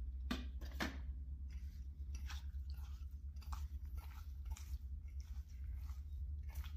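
Sliced pork being mixed into its marinade of black pepper and peanut oil: irregular wet squishing and light clicks, with two stronger strokes right at the start, over a steady low rumble.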